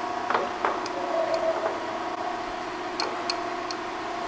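Graziano SAG 22 engine lathe's geared headstock running, a steady gear whine, with a few light clicks and high ticks scattered through it.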